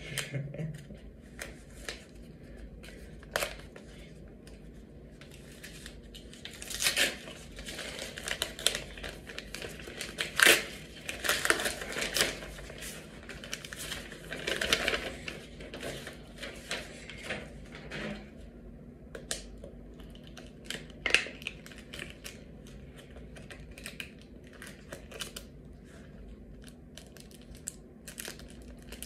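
Paper wrapper of a trading-card pack crinkling and tearing as it is opened by hand, in irregular crackly flurries with quieter pauses between.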